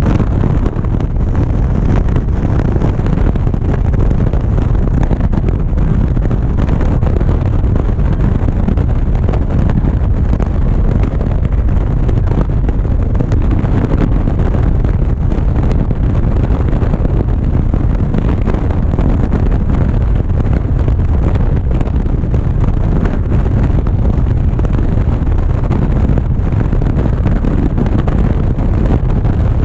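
Motorcycle cruising steadily at road speed, heard as a loud, constant low rumble of wind buffeting the camera's microphone with the engine's drone underneath.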